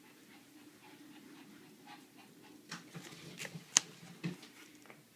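Faint handling noises of kit items and packaging: quiet for a couple of seconds, then a few soft rustles and light clicks, the sharpest a single click just under four seconds in.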